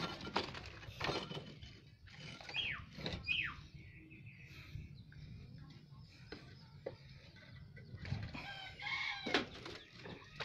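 Faint bird calls, two short falling calls about two and a half to three and a half seconds in, over a low background with scattered small knocks.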